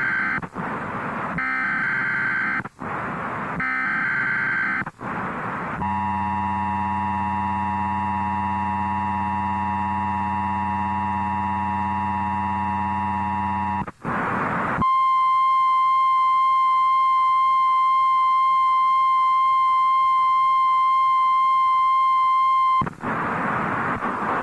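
Emergency Alert System signalling. It opens with a run of screechy digital header bursts, each about a second long. A steady buzzy attention tone follows for about eight seconds, then a single pure, high, steady alarm tone for about eight more, typical of the 1050 Hz weather-radio warning tone. A noisy burst starts near the end.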